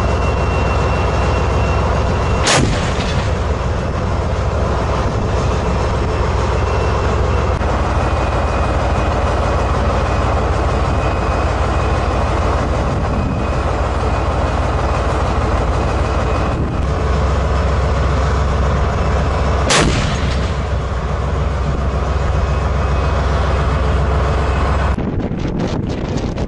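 Armoured vehicle's engine running loudly and steadily with a deep rumble. Two sharp gunshots or cannon shots ring out over it, one about two and a half seconds in and another some seventeen seconds later, and the engine sound cuts off near the end.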